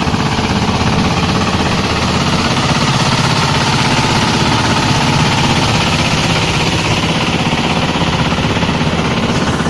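Small inboard diesel engine of a wooden river boat running steadily under way, a loud, rapid, even chugging.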